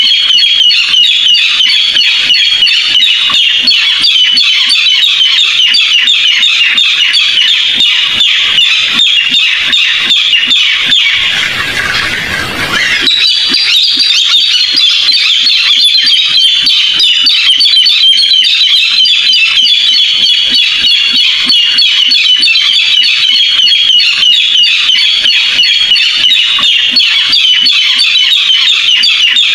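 Barred rail calls in a continuous run of rapid, harsh, repeated notes, with a short noisy break about twelve seconds in.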